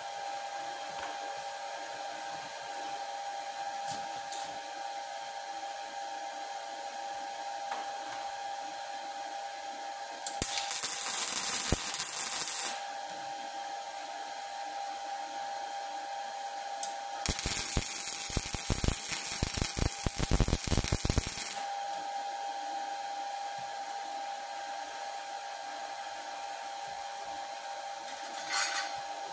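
Welding arc crackling in two bursts, a short one and then a longer one of about four seconds, as an extra rebar support bar is welded into a steel target stand, over a steady hum.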